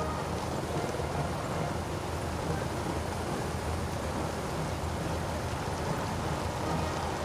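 Slow-moving vehicles, a column of escort motorcycles around an open military jeep, giving a steady low engine hum under an even outdoor hiss.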